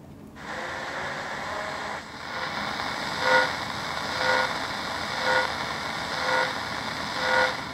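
Shortwave radio receiver, a Radio Shack DX-397 on its lowest shortwave band, giving out static with a repetitive pulse about once a second. The pulse is CODAR (Coastal Ocean Dynamics Applications Radar) coastal ocean radar, sweeping across frequencies on the shortwave band.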